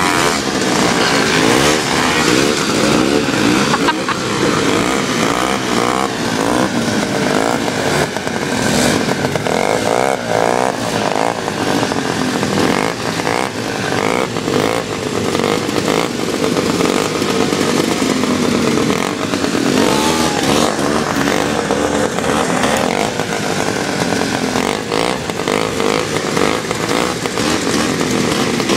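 Several vintage snowmobiles racing, their two-stroke engines revving up and easing off over and over, with a few engine notes overlapping.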